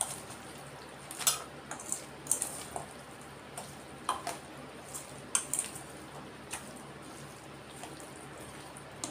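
Raw prawns in masala, with onion, capsicum and tomato, being mixed by hand in a steel bowl: irregular wet squelches and light clicks against the steel.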